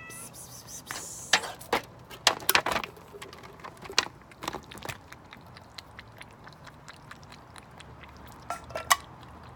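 Cats eating, chewing and crunching their food in irregular sharp clicks and crunches, loudest in a cluster between about one and three seconds in and again near the end.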